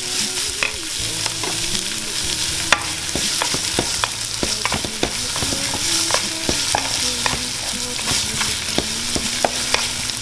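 Minced garlic sizzling in hot oil in a nonstick pan while a wooden spatula stirs and scrapes it, with many short taps and clicks of the spatula against the pan over a steady frying hiss.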